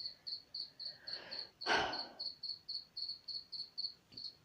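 A cricket-like insect chirping: short, high, evenly spaced chirps, about three or four a second, keeping a steady rhythm. A short, louder rustling hiss comes through about two seconds in.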